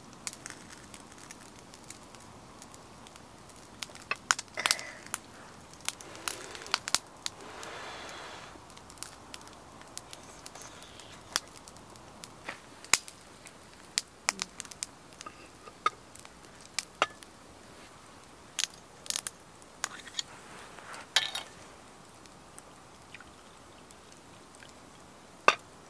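Wood fire crackling with irregular sharp pops. The firewood is poorly dried, and the speaker says it is slow to catch and smokes a lot. A single sharp knock near the end is the loudest sound.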